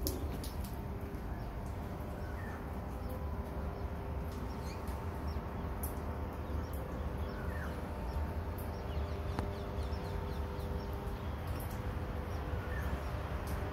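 Outdoor ambience: a steady low rumble with a faint steady hum, and scattered short bird chirps over it.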